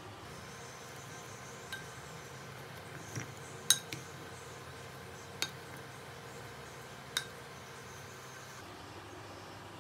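Wooden spoon tossing a salad in a ceramic bowl, clinking against the bowl about six times, the sharpest knock a little under four seconds in.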